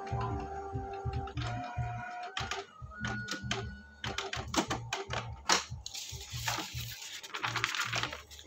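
Canon iP2770 inkjet printer mechanism running through its power-off cycle: short steady motor whines that change pitch, with clicks from the carriage and paper-feed parts. A dry rustle, like paper being handled, comes near the end.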